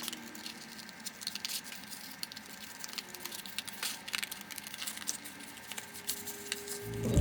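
Soft, irregular taps and scratches of art tools working on paper, in a gap in the music, which comes back in near the end.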